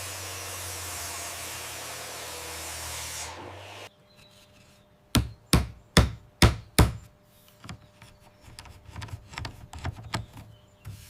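A power tool runs steadily and cuts off abruptly about four seconds in. Then five sharp hammer blows on wood come in quick succession, followed by lighter knocks and rubbing.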